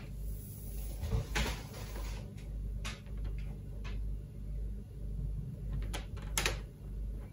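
PVC-coated multi-strand house cable being handled and drawn along a tape measure on a wooden worktop: a few scattered light knocks and rustles over a steady low hum.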